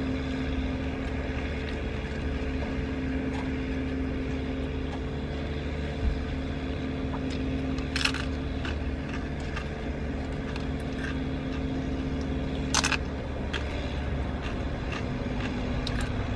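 Tortilla chips crunching as they are bitten, with a sharp crunch about halfway through and another about three quarters through, over a steady low engine hum with a faint held tone.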